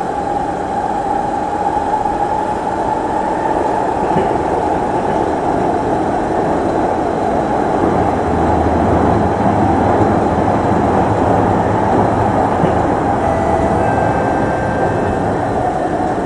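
Singapore MRT East-West Line train running through a tunnel, heard from inside the carriage: a steady rolling noise of wheels on rail. A few faint high tones appear near the end.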